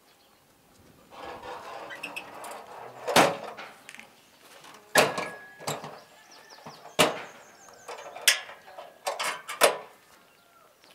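Irregular sharp knocks and clatters, about six of them a second or two apart, the loudest about three seconds in, after a short stretch of rustling and scraping.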